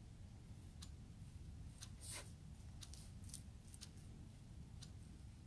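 Faint sticky clicks and soft rubbing as the gel side of a cut aloe vera leaf is rubbed over bare skin, a handful of scattered clicks over a low room hum.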